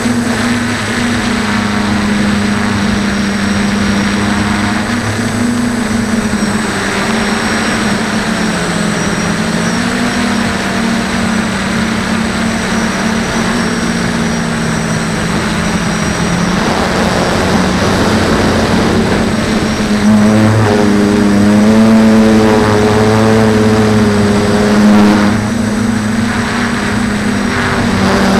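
DJI F450 quadcopter's four motors and propellers whining, recorded from on board. The pitch slides up and down as the throttle changes, and the sound grows louder about two-thirds of the way through.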